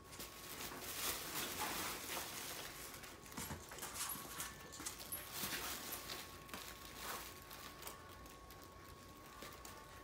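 A kitten scrabbling and pouncing in a fabric cat play tunnel on a hard floor: quick scuffs, rustles and claw clicks, busiest in the first six seconds.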